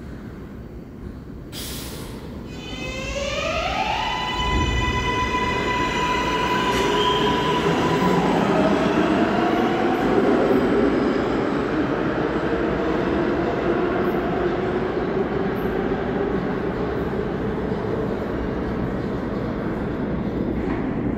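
An R143 subway train pulling out of the station. A brief burst of noise about two seconds in is followed by the electric propulsion's whine, several tones rising together and then holding steady. Under it is the rumble of the cars and wheels on the track, peaking partway through and slowly fading as the train moves off.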